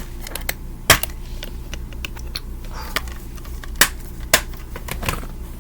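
Plastic Blu-ray cases being handled, giving scattered sharp clicks and taps over a low steady hum.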